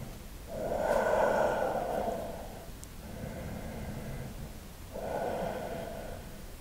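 A man breathing audibly while holding a deep forward-fold stretch: a long breath starting about half a second in, a fainter one in the middle, and another near the end.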